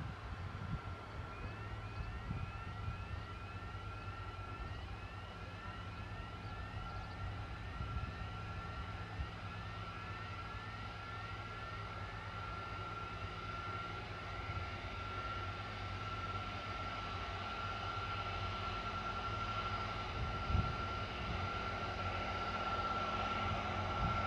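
Boeing 747-400 jet engines running, a steady high whine over a low rumble, with a faint pulsing about twice a second. It grows slowly louder toward the end.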